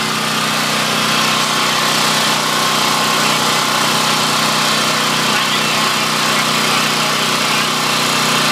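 Powermat 3000-watt portable generator's 212 cc engine running steadily, on its first run after being started.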